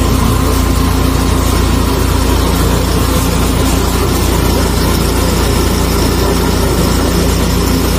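Petrol engine of an engine-driven high-pressure sewer jetter (350 bar, 34 litres a minute) running steadily.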